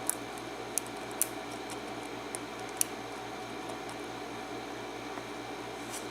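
A handful of short, sharp metal clicks and taps from a pin-tumbler lock cylinder being handled and taken apart, over a steady background hum.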